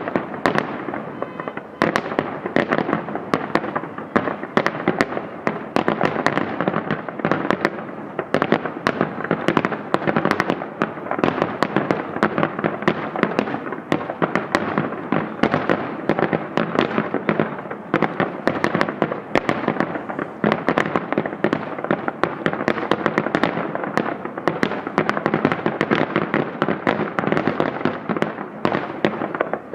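Fireworks display: a dense, continuous barrage of bangs and crackling reports, many a second, with no let-up.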